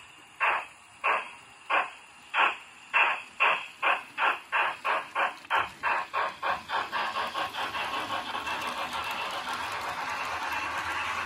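Digital sound decoder (Zimo MX645) in a Fleischmann model Prussian P8 steam locomotive playing steam-exhaust chuffs as the model pulls away. Slow, separate chuffs quicken steadily until they run together into a continuous rush about two-thirds of the way through.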